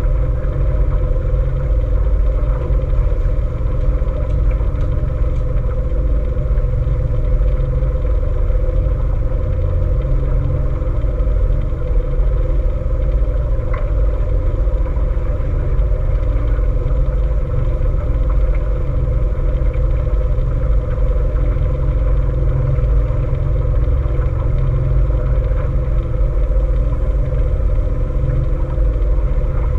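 A boat's engine running at a steady speed: a constant low rumble with a steady hum over it.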